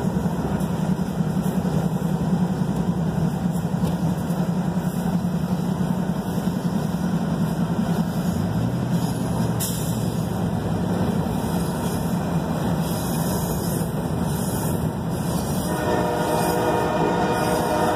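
Norfolk Southern freight train's diesel locomotives running steadily under power, mixed with road noise from a car pacing alongside. Near the end a locomotive's air horn starts to sound.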